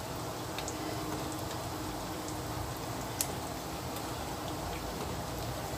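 Cooking oil sizzling steadily as breadcrumb-coated banana-filled bread rolls shallow-fry in a pan, with small scattered crackles and one sharper click about three seconds in.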